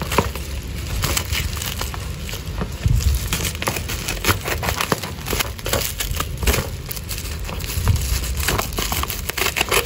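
Bubble-wrap shipping package being handled and cut open with small scissors: irregular crinkling and crackling of the plastic wrap mixed with scissor snips.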